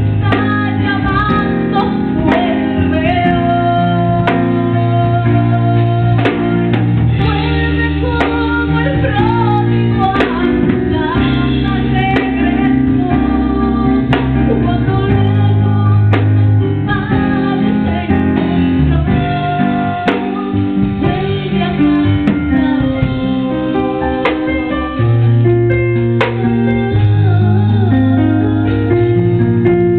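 A woman singing a worship song through a handheld microphone, over continuous instrumental accompaniment.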